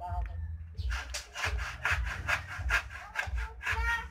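Hands working a plastic pipe compression fitting onto a foot valve: a quick run of rubbing, scraping strokes, about three or four a second, with dull handling bumps underneath.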